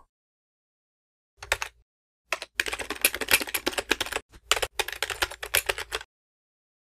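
Typing on a computer keyboard: a brief burst of key clicks about a second and a half in, then a quick, steady run of keystrokes for about three and a half seconds that stops about a second before the end.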